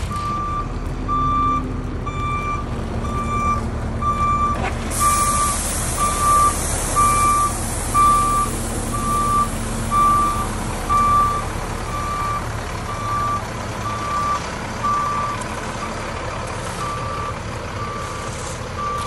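Dump truck's reverse alarm beeping about once a second over the diesel engine running as the truck backs up. About five seconds in, a steady hiss joins as stone chips pour from the gravity chip spreader box onto the road.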